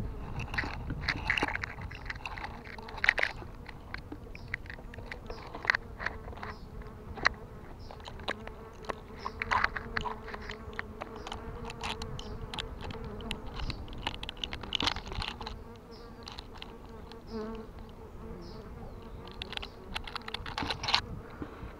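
Honey bees buzzing steadily around a swarm trap that a swarm has already moved into, with many short sharp clicks and knocks scattered through it.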